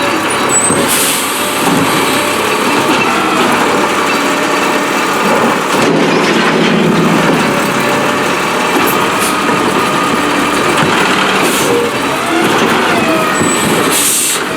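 Peterbilt 320 refuse truck with a New Way Rotopac body at work: its diesel engine runs steadily under the noise of the machinery, with occasional short squeals and a brief hiss near the end.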